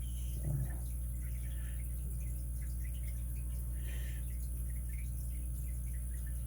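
Faint, scattered small ticks and clicks of lock-picking tools working a Master 220 padlock core, over a steady low electrical hum. A brief, louder low sound comes about half a second in.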